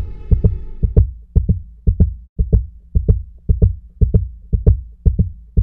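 Heartbeat sound effect: pairs of short, low thumps repeating about twice a second in a steady double beat, while a sustained drone fades out within the first second.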